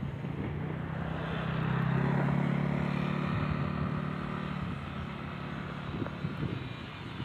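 Engine of a road vehicle driving past, its hum growing to its loudest about two seconds in and then fading away.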